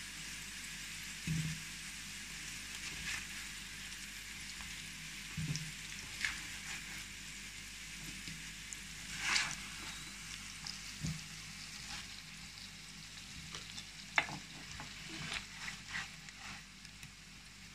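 Fried potato wedges still sizzling in hot oil in a nonstick frying pan just taken off the heat, a steady hiss. Over it come scattered scrapes and knocks of a plastic slotted spatula against the pan as the potatoes are scooped out into a pot.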